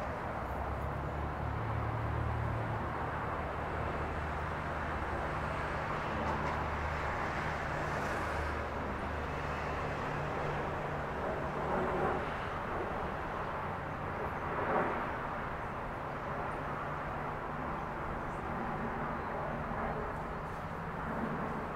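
Diesel locomotive engine of a slow-moving freight train, heard from a distance as a steady low hum under a broad outdoor hiss, with two brief louder swells about twelve and fifteen seconds in.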